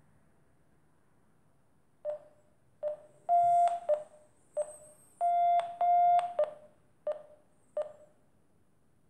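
Variometer app on a Samsung smartphone beeping: a run of short electronic beeps at one pitch, broken by three longer, slightly higher tones, starting about two seconds in.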